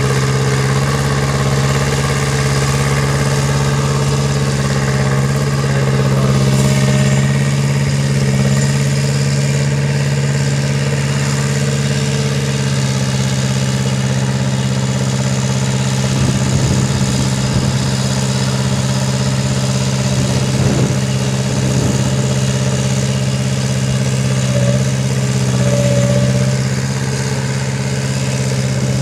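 Kubota diesel engine of a hydraulic-drive swamp buggy running steadily at idle, with a few irregular knocks about halfway through.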